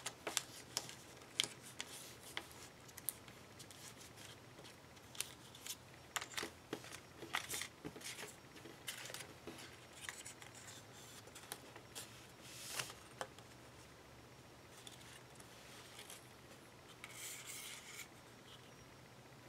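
Origami paper being folded and creased by hand: irregular crisp crackles and rustles, with a denser stretch of crinkling near the end.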